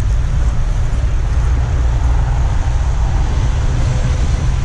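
Steady low rumble of a bicycle rolling over a bumpy brick-paved path, the jolting shaking the camera, mixed with wind on the microphone.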